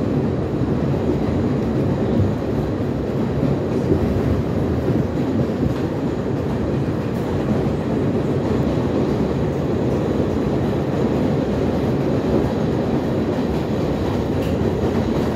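Steady rumble of an MTA R62 subway car running along the track, heard from inside the car: wheel and rail noise at an even level.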